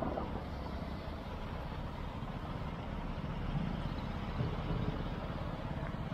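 Highway traffic going by: a steady road rumble, with vehicles swelling past a few times near the middle.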